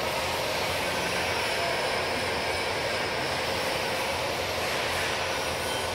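Steady, even drone of running factory machinery.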